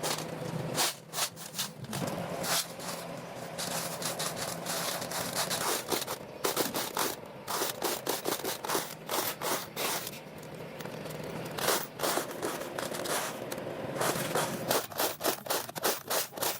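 Irregular scraping with rapid, uneven clicks and knocks, over a faint steady hum during the first half.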